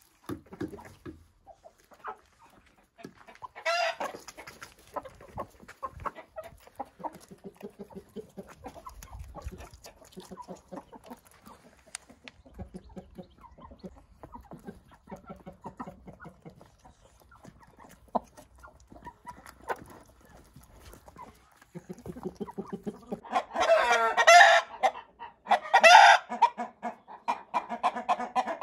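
Domestic hens clucking softly and continuously, with a louder call about four seconds in. Near the end a rooster crows loudly, with a second loud call soon after.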